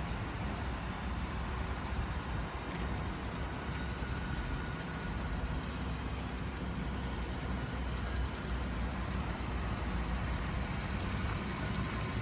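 Suzuki Carry kei truck's small 660 cc three-cylinder engine idling steadily.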